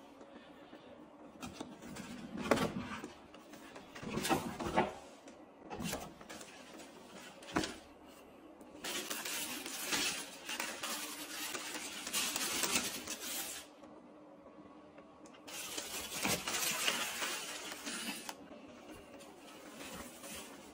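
Tissue paper rustling and crinkling as a gift box is unwrapped: several short crinkles in the first half, then longer stretches of continuous rustling around the middle and again later.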